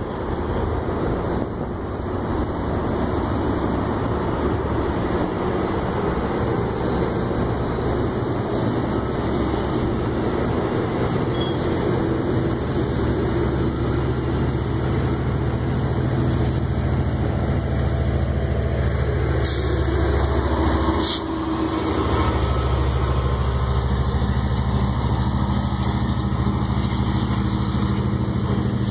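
Bilevel commuter coaches rolling past with steady wheel-on-rail noise as the train departs. It is followed by the diesel locomotive pushing at the rear, an EMD F59PHI with a 12-cylinder two-stroke 710 engine, running steadily under load as it moves off.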